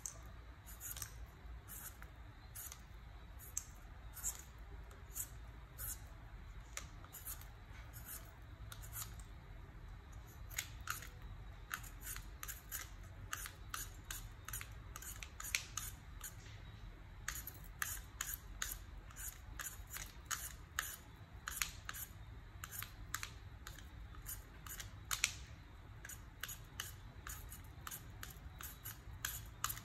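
Julienne peeler shredding a firm vegetable into strips: repeated short, crisp scraping strokes. They come slowly at first and quicken from about ten seconds in.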